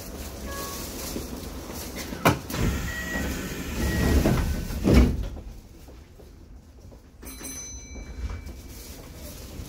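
Inside a Kintetsu 1233-series commuter car, the train's sliding doors close. There is a sharp knock about two seconds in, then a louder thump about five seconds in, after which the car goes quieter. A few short electronic tones sound near the end.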